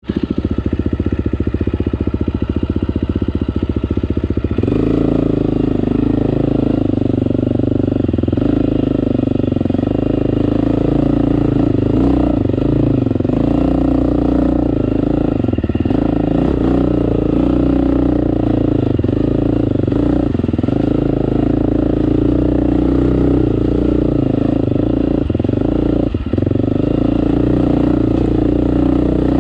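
A KTM 350 XC-F dirt bike's single-cylinder four-stroke engine riding a rocky trail. For the first four seconds or so it puts along with an even firing beat, then it turns suddenly louder and its revs rise and fall unevenly with the throttle for the rest of the ride, dropping off briefly now and then.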